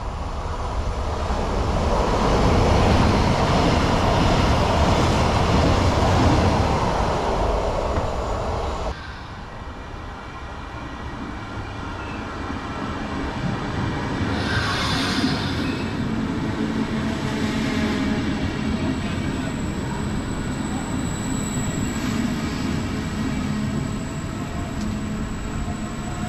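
Double-deck regional passenger train running into a station platform, with rumbling wheel and running noise. The noise drops away sharply about a third of the way in, then builds again as the train draws alongside. A brief hiss comes about halfway through, and thin whining tones follow as it slows.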